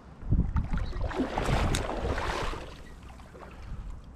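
Hooked brown trout splashing and thrashing at the surface of shallow water close by, a rush of splashing that lasts about two seconds before dying down, over a low wind rumble on the microphone.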